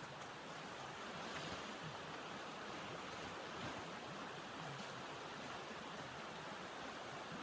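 Blizzard wind blowing steadily, an even hiss without a break.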